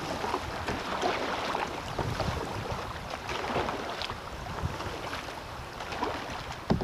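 Kayak paddle strokes dipping into a river, splashing on alternating sides, with water running along the kayak's hull. A single louder thump comes near the end.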